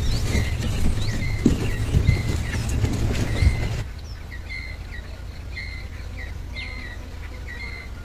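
A small bird chirping over and over, short chirps about twice a second, some sweeping upward. In the first half there are also low rustling and a few knocks from hands working the clay; these stop at a cut about four seconds in.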